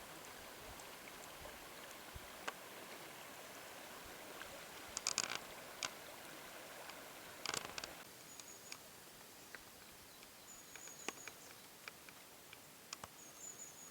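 Faint outdoor background hiss with scattered clicks and crackles, louder clusters of crackling about five and seven and a half seconds in, and a few short high chirps in the second half.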